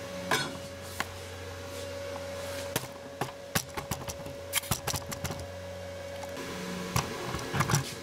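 Scattered sharp clicks and light metallic clinks, from tools and handling, over a steady low hum.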